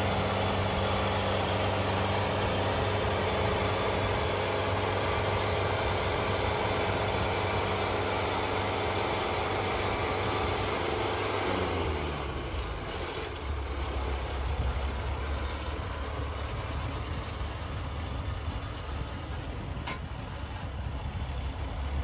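Wood-Mizer Super Hydraulic portable band sawmill running at cutting speed while its blade trims the bark edge off a stack of boards. About halfway through, the engine winds down in pitch and settles to a lower, steady idle.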